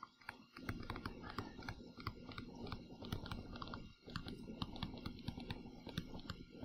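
Stylus tapping and scratching on a tablet as words are handwritten: faint, irregular clicks several times a second, with a short pause about four seconds in.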